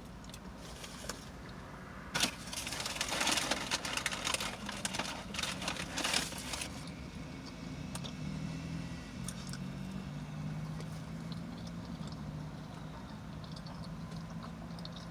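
Crinkly rustling of paper food wrapping for several seconds, starting with a sharp crackle, then a steady low engine hum.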